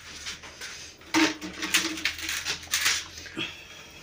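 Ceramic toilet tank and its lid knocking and scraping as they are handled, a run of clinks from about a second in, one with a brief ring.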